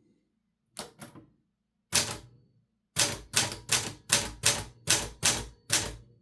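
1968 Olivetti Linea 88 manual typewriter being typed on: two light key taps about a second in, a single strike a second later, then an even run of keystrokes at about three a second.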